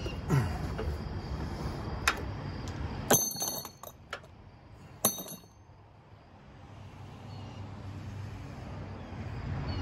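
Light taps and clinks of metal tools and engine parts being handled in an open engine bay, with two sharp ringing clinks about three and five seconds in. A low background rumble underneath drops away about halfway through.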